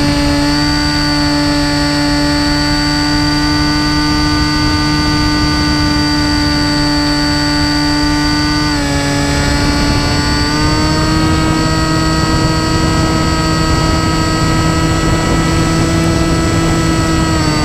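Electric motor and propeller of an FPV flying wing whining steadily, heard from the onboard camera over the rush of air. The pitch dips about halfway through, then climbs and holds a little higher as the throttle changes, and drops again at the end.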